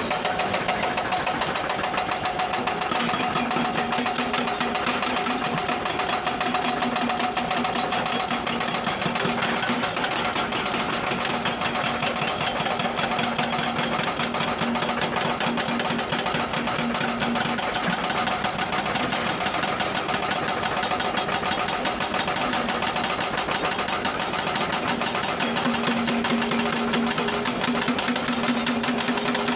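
Bucket wheel excavator machinery running steadily: a fast, even rattling clatter over a steady hum that drops away for a while past the middle and comes back near the end.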